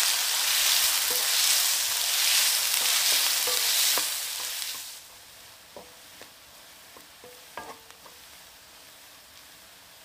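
Diced onion sizzling in hot oil in a stainless steel wok while a wooden spatula stirs it. About five seconds in the sizzle drops to a much quieter hiss, with a few light knocks of the spatula against the pan.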